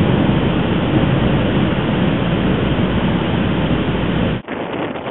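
Storm-force wind buffeting the microphone over waves breaking on the shore, a dense rumbling rush. About four and a half seconds in it cuts off abruptly and drops to a lighter, gusty wind.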